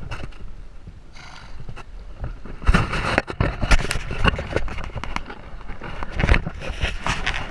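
Horses wading and swimming through lake water: irregular splashing and sloshing, with the loudest splashes about three to four seconds in and again near six seconds.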